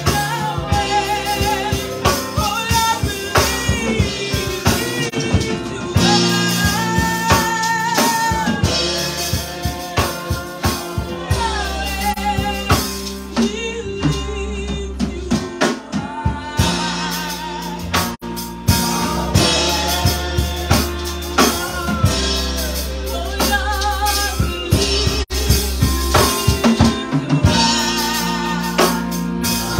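Gospel worship song: a lead singer singing with vibrato over a drum kit accompaniment.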